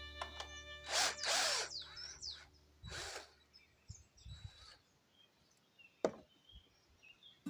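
Wood being worked with hand tools: two short rasping strokes, then scattered light taps and one sharp knock about six seconds in.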